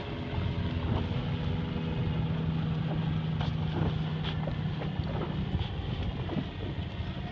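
Outboard motor of the filming boat running steadily with a low hum that eases off near the end, under wind noise on the microphone and water splashing against the hull.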